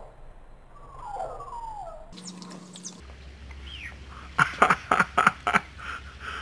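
Dog whining once with a wavering, rising-and-falling tone, then a quick run of about six sharp clicks or snaps a little past the middle.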